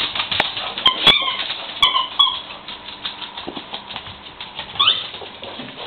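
Squeaky toy being squeaked as a pet chews at it: a few short squeaks between about one and two seconds in and a longer rising squeak near the end, over rapid scratchy clicking.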